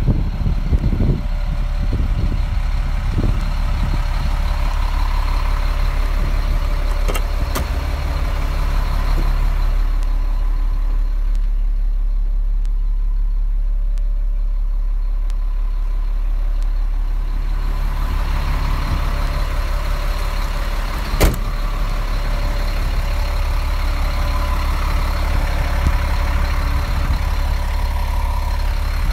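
The diesel engine of a 2001 Sterling truck idling steadily with a constant low rumble. It sounds muffled for several seconds in the middle, when the camera is inside the cab. A single sharp knock comes about 21 seconds in.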